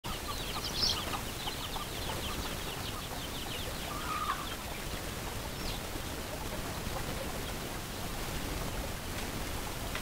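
A flock of chickens with chicks clucking and peeping: a quick run of short, high calls during the first three seconds or so, then a few single calls.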